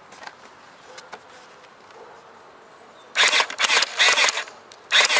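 Groza gel blaster replica firing two bursts of rapid shots, about three seconds in and again near the end, heard from a camera mounted on the blaster.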